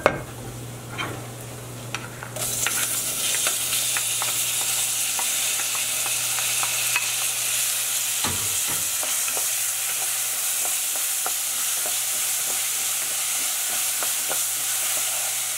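Rice frying in hot oil in a pan, stirred and scraped with a wooden spoon in many small clicks. About two seconds in the sizzle suddenly grows loud as diced tomato and onion go into the hot oil, and it keeps going steadily under the stirring.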